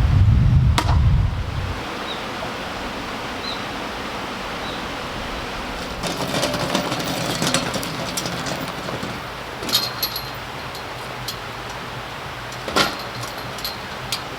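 Wind rumbling on the microphone for the first couple of seconds, then a steady outdoor hiss with scattered clicks and knocks, the loudest knock near the end.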